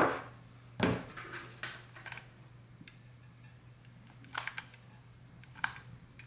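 Light handling clicks and knocks: one knock about a second in, then a few scattered clicks as a hot glue gun's trigger is squeezed to push out sealing wax. A faint low steady hum runs underneath.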